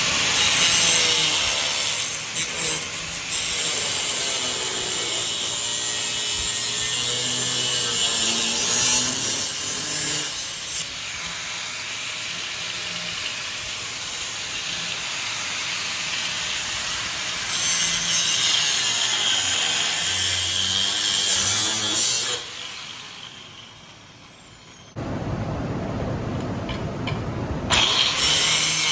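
Angle grinder with a cutoff wheel cutting through the broken steel pulley bracket on a lawnmower deck, a loud steady cutting hiss that eases and swells as the wheel bites. The motor winds down about three quarters of the way through, then starts again and cuts hard near the end.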